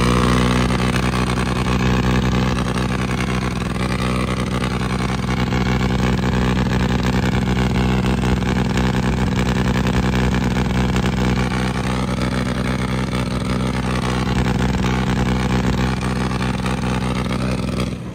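Farmtrac tractor's diesel engine running at a steady speed while the tractor drives along a road.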